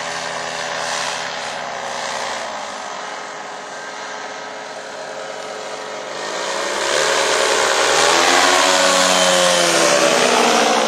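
Parasport Fun-Alu 125 paramotor's engine and propeller droning in flight. It grows much louder about six seconds in as it passes low overhead, its pitch bending up and then falling away.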